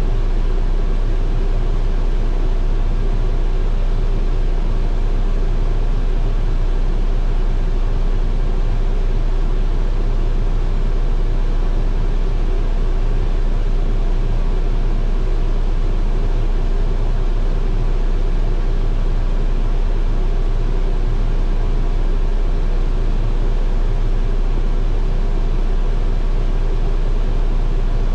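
Freightliner dump truck's diesel engine idling, heard from inside the cab: a steady low rumble under an even hiss that does not change.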